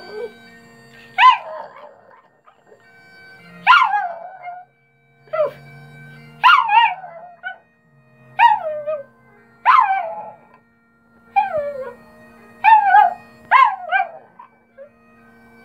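Chihuahua howling along to bagpipe music: about nine short yowls, each sliding down in pitch, every one to two seconds. Underneath is the steady drone of the bagpipes.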